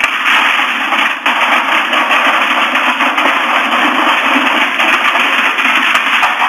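Loud steady rushing noise with a few short knocks, as items are pulled out of a store cabinet.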